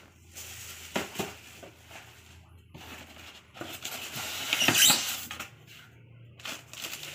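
Styrofoam packing insert scraping and rubbing against a cardboard box as it is pulled out, with a couple of short knocks about a second in and the loudest scrape just before five seconds in.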